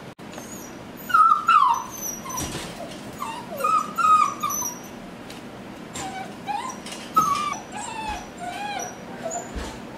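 Young puppies whining and whimpering: a string of short, high-pitched cries, loudest in the first few seconds.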